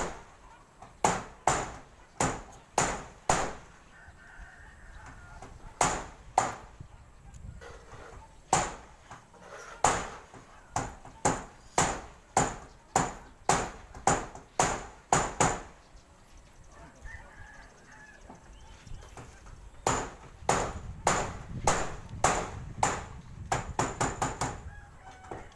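Hammer blows on a corrugated galvanized-iron roof sheet, about two strikes a second, in runs with short pauses between them. A rooster crows faintly in the background during the pauses.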